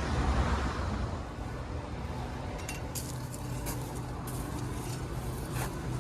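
Scattered light clinks and clicks, starting about halfway in, over a steady low outdoor rumble with a faint hum.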